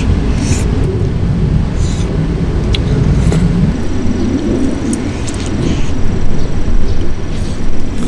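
Wind buffeting the microphone in a loud, steady low rumble. Over it come a few short wet slurps and chewing sounds as a person eats noodles and braised pork ribs.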